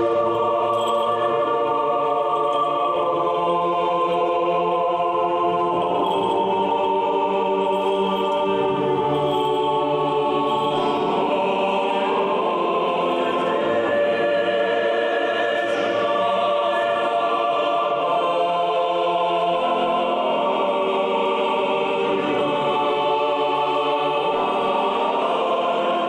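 Background music: a choir singing slow, sustained chords.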